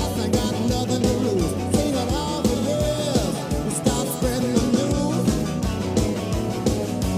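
Arena victory song: rock music with a singer, guitar and a steady drum beat.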